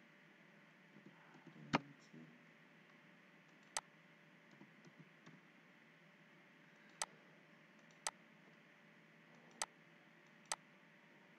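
Computer mouse clicks: six sharp single clicks one to three seconds apart, the loudest about two seconds in, with a few soft keyboard key taps around two and five seconds in, over faint steady hiss.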